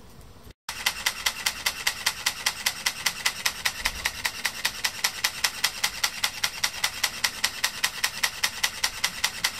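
Fujifilm GFX 100 medium-format mirrorless camera shooting continuously with a lens mounted: a rapid, even run of mechanical shutter clicks at about five a second, starting abruptly just under a second in after a brief faint hiss.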